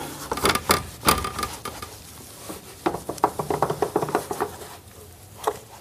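Cloth wiping and rubbing over plastic bumper trim, with glove rustles and small clicks: a run of short scratchy strokes, busiest about a second in and again around three seconds in.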